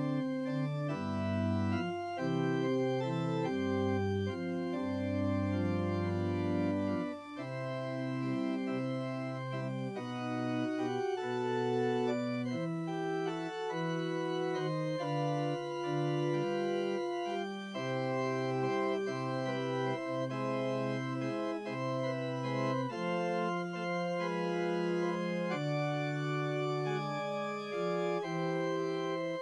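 Church organ playing a postlude, full sustained chords that move every second or two, closing the worship service.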